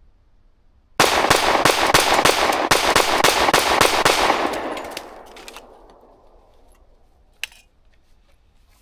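Rapid fire from a ported Girsan Witness 2311 Brat .45 ACP pistol: a fast string of about a dozen shots, roughly four a second, with the trigger worked as quickly as possible, the ringing dying away after the last shot. A couple of sharp clicks follow a few seconds later.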